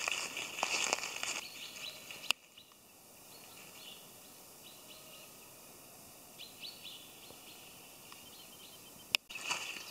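Crackling and rustling of dry leaf litter being trodden and pushed through, with clicks of twigs, for the first two seconds. It breaks off abruptly, leaving a quiet outdoor background with a few faint bird chirps; the crackling returns abruptly near the end.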